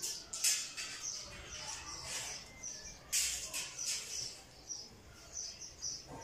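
Cloth rustling as hands fold and press pleats into the fabric, loudest twice: about half a second in and just after three seconds. A bird chirps over it again and again, a short high chirp every fraction of a second.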